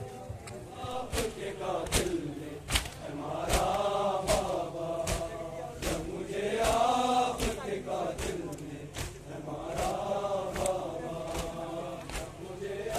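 A crowd of men chanting a Muharram lament (noha) in unison, in long rising and falling phrases, over a steady rhythm of sharp chest-beating slaps (matam) a little more than once a second.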